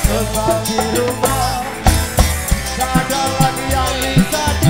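A live dangdut band plays a passage with no words: drum kit and hand-drum beat, deep bass and a bending melodic lead line over it.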